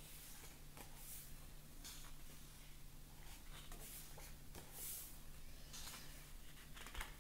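Thick paper pages of a paperback colouring book being turned and smoothed flat by hand: a series of faint rustles and swishes, about one a second, over a steady low hum.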